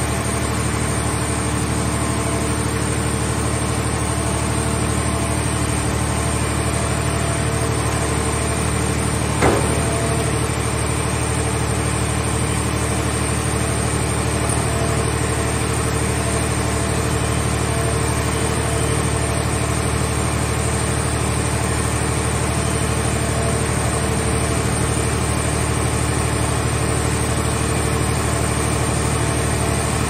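Steady running of a portable car-shell scrap baler's engine and hydraulic power unit as its grab arm lowers a scrapped car body into the press box. One sharp knock about a third of the way through.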